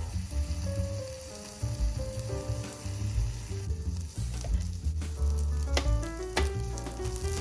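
Food sizzling as it fries in a miniature pan, with crackles over a steady hiss, under light background music with a simple melody.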